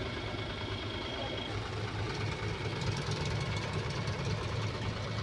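JCB 3DX backhoe loader's diesel engine running steadily with an even, low drone.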